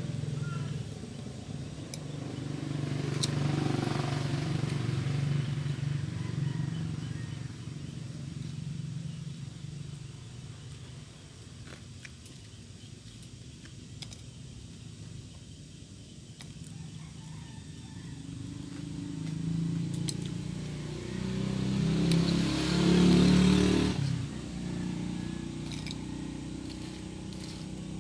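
Engines of passing vehicles: a low hum swells and fades twice, a smaller pass about four seconds in and a louder one a little after twenty seconds.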